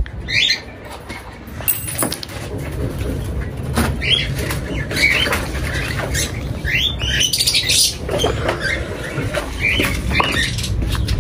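Caged birds in a wire-mesh aviary calling in short rising chirps, with wing flapping, as its metal door is opened; a few sharp metallic clicks from the door and latch.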